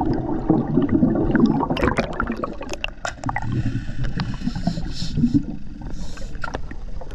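Water gurgling and sloshing around a submerged camera, with air bubbles and a low rumble. Many short sharp clicks and crackles are scattered throughout.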